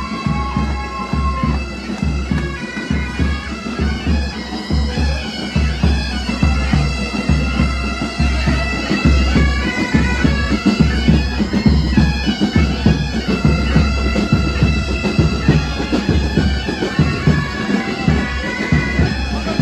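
Pipe band of Highland bagpipes playing a march tune, with a steady drum beat underneath.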